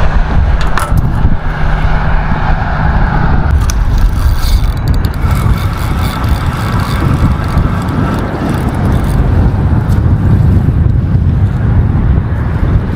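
Wind buffeting a body-worn action camera's microphone, a loud, steady low rumble. A few light clicks come through from about four to seven seconds in.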